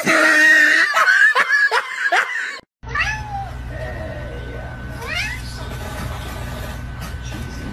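Domestic cat yowling and meowing: a run of loud, short cries that swoop up and down in pitch over the first couple of seconds. After a brief break comes quieter room noise with a low hum and a faint rising call.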